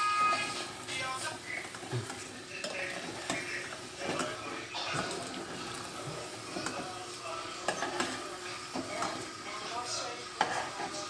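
Mince frying and sizzling in a pan while a utensil stirs it, with scraping and clinks against the pan.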